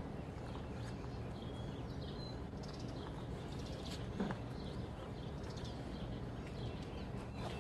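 Quiet outdoor background: a steady low hum of noise with a few faint bird chirps, and a single faint tap a little after four seconds in.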